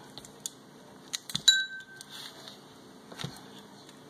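Kitchen knife clicking and knocking against the cutting surface while cutting through frozen brie. The strongest is a sharp metallic clink with a brief ring about a second and a half in, and there is a duller knock a little after three seconds.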